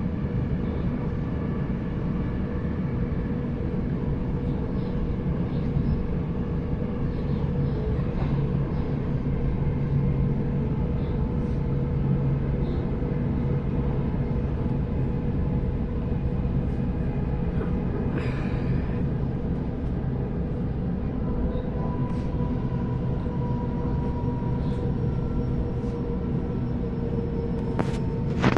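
Interior running noise of a Sydney Trains Waratah double-deck electric train on the move: a steady rumble of wheels on track with a constant hum, a higher tone joining about three-quarters of the way through, and a sharp click near the end.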